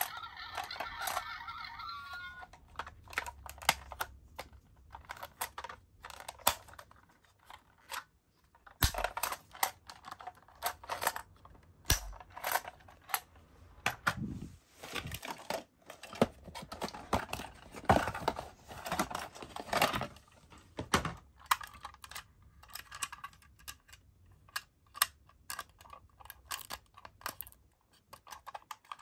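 Toy ambulances being handled: irregular plastic clicks, clacks and rattles as the toys are picked up, their doors opened and the toys set down on a wooden floor. An electronic toy siren sounds at the start and stops about two seconds in.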